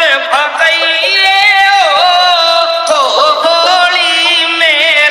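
Mid-range test segment of a DJ sound-check track: a loud, ornamented melody with a bending, wavering pitch, heard with the bass cut away.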